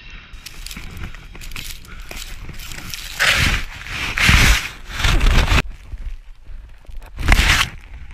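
Rough rushing noise on a helmet camera's microphone as it is engulfed in avalanche snow, with several loud bursts about a second apart.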